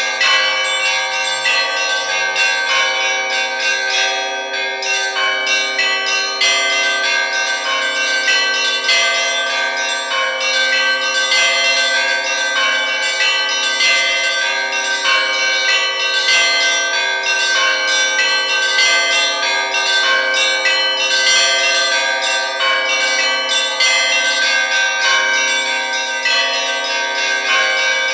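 Russian Orthodox church bells rung close up inside the belfry, a continuous peal. The small bells are struck rapidly, several times a second, over the sustained hum of the larger bells.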